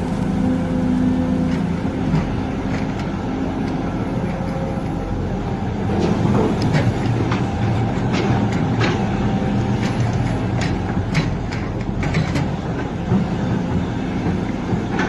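HidroMax hydraulic excavator's diesel engine running steadily under load while it loads, with a run of sharp knocks and clatters from about six to thirteen seconds in.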